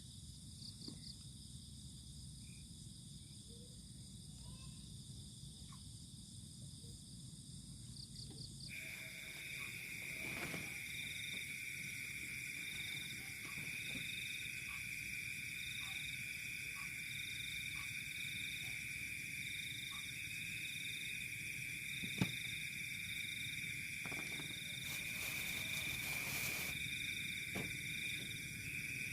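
Night insects calling in steady, high, even tones. A louder, closer caller with a pulsing note above it joins abruptly about a third of the way in, and there is one sharp click later on.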